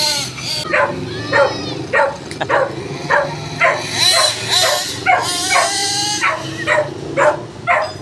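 A dog barking repeatedly, about two barks a second, over the steady hum of a small remote-control buggy engine running underneath.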